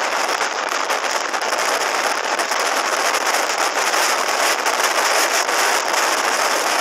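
Wind rushing steadily over a helmet-mounted camera on a motorcycle riding at highway speed.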